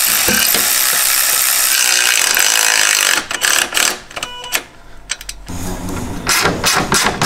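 Workshop tool noise during the intercooler fitting: a loud steady hiss for about three seconds, then bursts of quick clicking and ratcheting.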